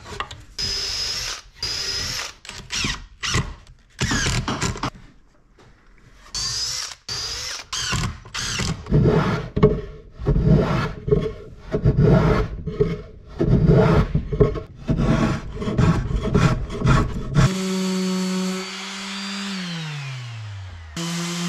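Cordless drill running in short whining bursts, boring into the hardwood panels of a box, then a quicker run of bursts. Near the end an electric random orbital sander runs with a steady hum, winds down once and starts up again.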